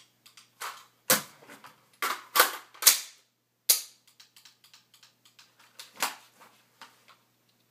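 Sharp metallic clacks and fainter clicks of an unloaded AR-15 rifle and a Ruger SR9c pistol being handled in a dry-fire drill: magazines going in and out and actions being worked. About six loud clacks come in the first three seconds and one more about six seconds in.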